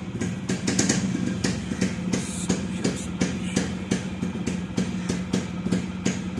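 Two-stroke motorcycle engine idling: a steady low hum with regular popping, about four pops a second.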